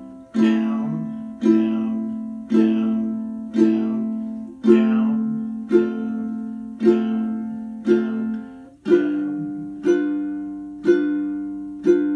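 Ukulele played with steady quarter-note down strums, about one strum a second, each chord ringing and fading before the next. The chords move through C, A minor, F and G7.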